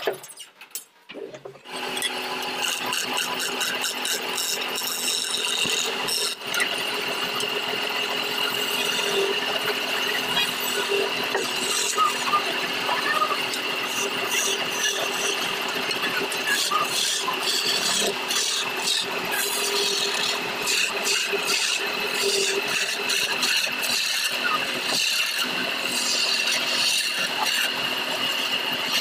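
A homemade wood lathe starts running about two seconds in, with a steady whine. A hand-held chisel cuts the spinning wooden blank, a continuous scraping with many short rattling strokes as the chips come off.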